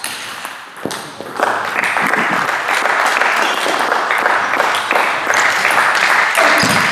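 Table tennis ball clicking off bat and table, then from about a second and a half in, steady applause from spectators.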